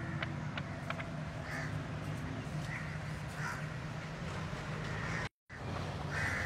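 Crows cawing several times over a low, steady outdoor background hum; the sound cuts out completely for a moment near the end.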